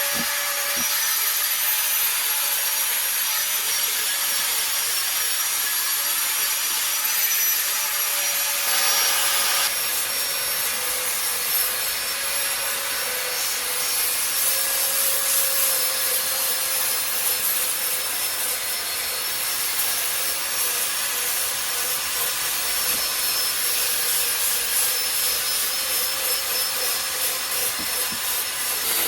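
A power tool working cedar wood, its motor running at a steady pitch while it grinds and rubs against the wood without a break.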